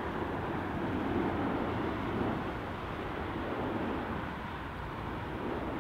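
Air Canada Boeing 787-9 jet airliner on its arrival, its engines making a steady rumble with no sudden changes.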